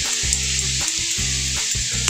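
Shredded vegetables (napa cabbage, carrot and fermented bamboo shoots) sizzling steadily in a hot oiled wok as they are stir-fried. A silicone spatula scrapes and tosses them, giving small scraping clicks.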